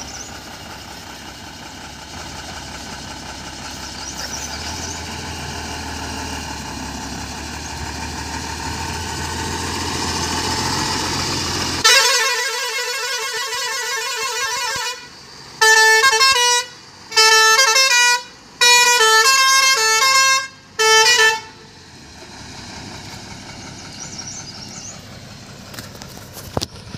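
Tata truck's diesel engine running as it moves off, then its horn sounding about twelve seconds in: first a fast warbling blast, then four short bursts of a stepping multi-note tune. The horn is the loudest thing, and the engine noise drops as the truck pulls away.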